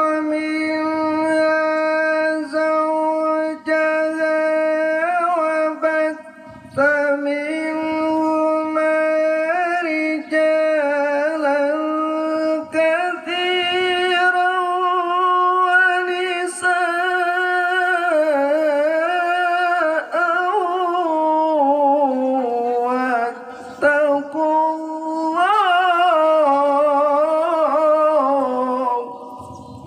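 Quran recitation sung by a qori in a melodious tilawah style: long held notes with ornamented, wavering runs, in phrases broken by short breaths. The voice stops just before the end.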